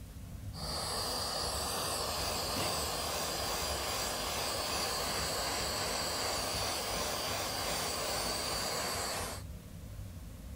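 Handheld gas torch burning with a steady hiss and a thin high whistle. It lights about half a second in and is shut off about a second before the end.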